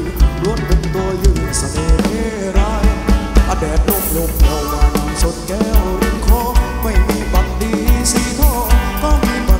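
Thai live band music played loud through a PA: a singer's voice over a steady bass-drum beat of about two thumps a second, with guitar and keyboard parts.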